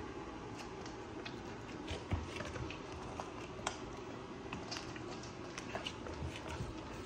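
A dog taking and chewing kibble treats: irregular small clicks and crunches, scattered through, over a steady low background.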